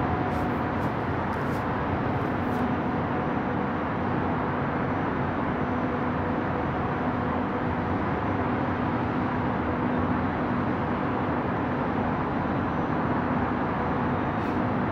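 Steady, unbroken rush of wind and far-off city traffic heard from high above the streets, with a faint low hum running through it.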